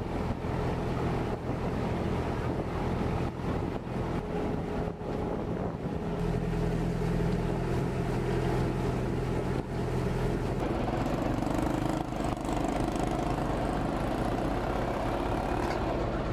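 Engine of a small river ferry running steadily, its note changing a little about ten seconds in.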